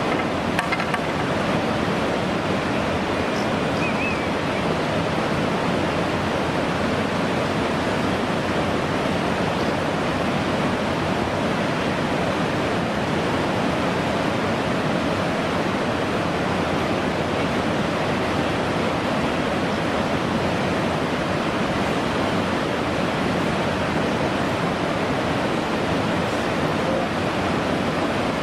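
Whitewater rapids rushing steadily, a constant churning water noise with no breaks.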